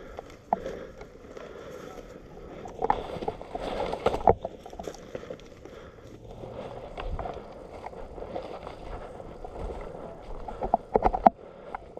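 Rustling and scuffing movement noise with scattered sharp clicks and knocks, loudest about four seconds in and again in a quick cluster near the end.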